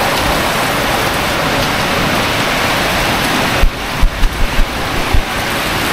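Heavy downpour of rain, a steady loud hiss, with a short run of low thumps a little over halfway through.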